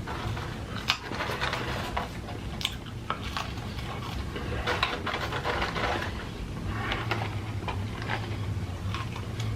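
Close-miked chewing: irregular crunches, wet smacks and clicks of someone eating, over a low steady hum.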